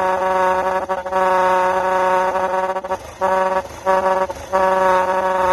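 Loud horn fitted in a Suzuki motorcycle's silencer, blaring one steady brassy note, broken by three short gaps about three to four and a half seconds in.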